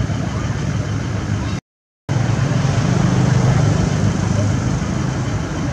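Steady low rumbling background noise, broken by about half a second of dead silence a little past a second and a half in.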